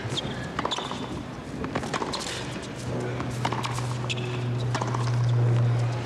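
A tennis rally on a hard court, heard through a TV broadcast: rackets striking the ball several times, with short sneaker squeaks. A low steady hum swells louder in the second half and stops abruptly at the end.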